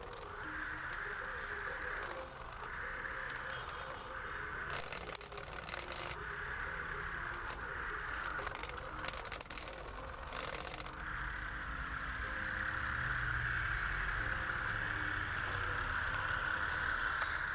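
Homemade grass cutter, a small motor on a PVC pipe, running with a steady high whir. The cutter rattles and crackles as it strikes weeds and grass, around five seconds in and again for about two seconds near the middle.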